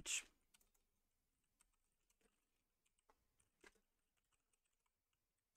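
Faint computer keyboard keystrokes: light, irregular clicks of typing, one a little louder than the rest a little past the middle.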